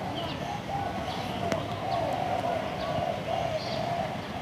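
Background birds calling: a low wavering call that runs on with short breaks, with a few faint high chirps over it. A single sharp click comes about one and a half seconds in.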